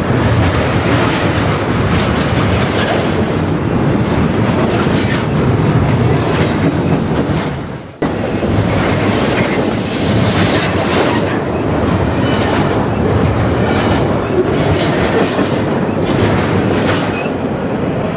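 Norfolk Southern double-stack intermodal freight train passing close by: a steady loud rumble of steel wheels on the rails with clacks as the well cars roll over the track.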